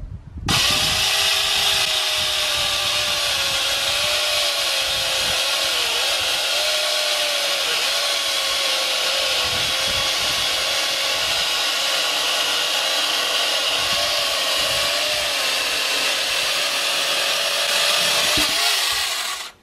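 Angle grinder fitted with a Green Garden chainsaw bar-and-chain attachment, running at full speed as the chain saws through a thick log. It starts suddenly about half a second in, runs steadily with its pitch dipping slightly now and then under load, and stops just before the end.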